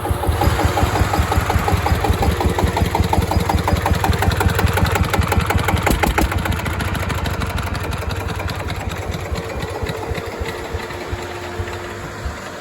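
SD1110 diesel engine of a homemade generator running with an even, regular knocking beat, growing gradually fainter in the second half.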